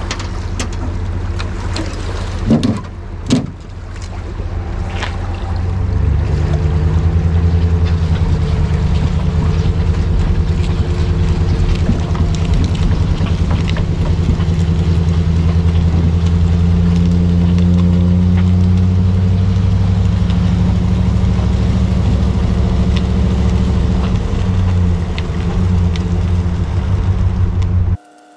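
Pickup truck engine running steadily while towing a drift boat on its trailer up the launch ramp. There are a couple of sharp knocks near the start, and the engine hum grows louder about six seconds in and holds until it cuts off just before the end.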